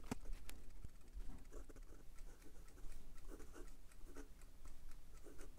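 Asvine P20 fountain pen's stiff fine nib scratching faintly across notebook paper in short strokes as words are handwritten, with a couple of light clicks near the start.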